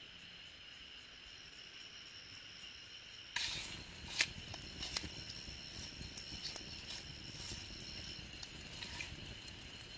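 Insects trilling steadily at a high pitch. About three seconds in, a wood campfire's crackle comes in louder, with scattered snaps and one sharp pop about a second later.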